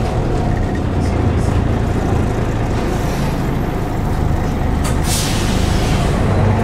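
Volvo B10BLE bus's rear-mounted six-cylinder diesel engine running with a steady low rumble, heard from inside the passenger cabin. About five seconds in, a click and a short hiss of released air from the air brakes.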